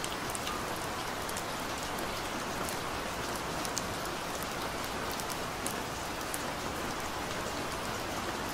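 Steady rain falling, an even hiss with scattered sharp ticks of single drops.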